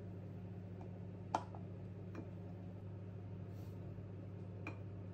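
A steady low hum, with one sharp light click about a second and a half in and a fainter one near the end, typical of kitchen utensils being handled during food preparation.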